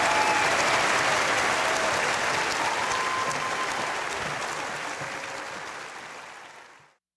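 Audience applauding at the end of a live song. The applause fades away over the last few seconds and then cuts off.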